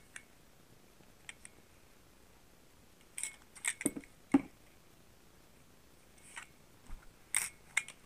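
Light clicks and rustles of a replacement hot-air-gun heating element, a coil on a ceramic base with wires attached, being turned over in the hand. A cluster of clicks comes about three to four seconds in and another near the end.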